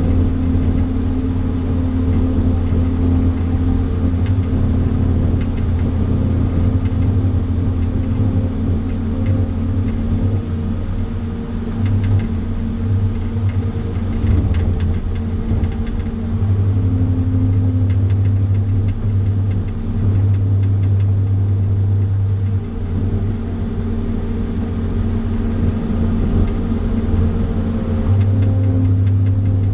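Engine of firewood-processing machinery running steadily, its low hum shifting slightly now and then as the load changes.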